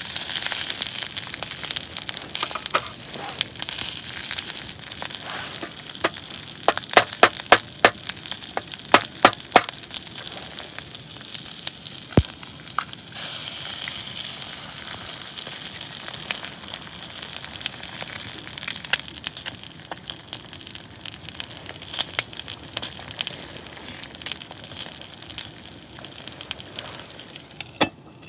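Steady sizzling hiss with many sharp crackles and pops, thickest in the first ten seconds: food frying in a pan over a campfire.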